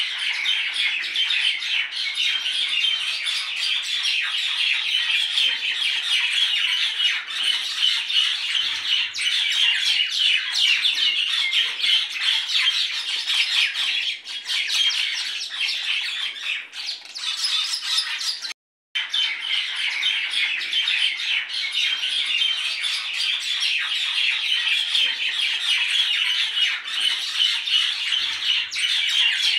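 A dense, continuous chorus of many small birds chirping and squawking together. It cuts out for a moment about two-thirds of the way through, then carries on the same.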